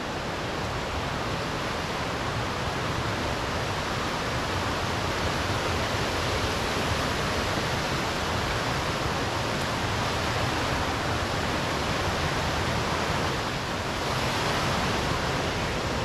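Waterfall rushing steadily: the continuous, even sound of falling water.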